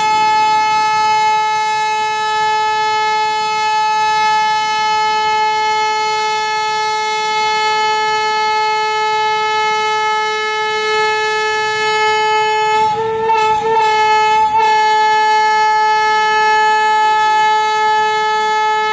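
Diesel locomotive's horn held in one long continuous blast, a single steady tone that falters briefly about two-thirds of the way through. It warns people on the crossing to clear the track.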